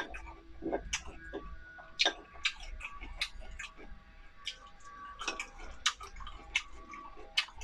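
Eating braised pork rice, close to the microphone: irregular sharp clicks and taps of eating utensils against a bowl, several a second.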